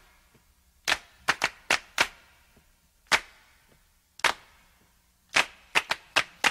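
About a dozen sharp percussive hits at uneven spacing, each with a short echoing tail.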